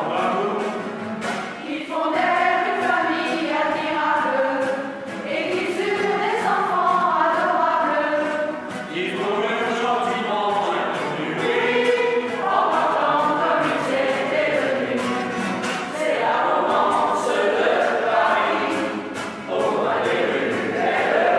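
A mixed choir of women's and men's voices sings together in phrases a few seconds long, with short breaks for breath between them.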